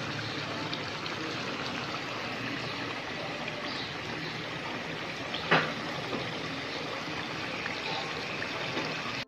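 Chicken yogurt karahi frying in its oil in a wok, a steady sizzle and bubble now that the water has cooked off, with a single short knock about five and a half seconds in.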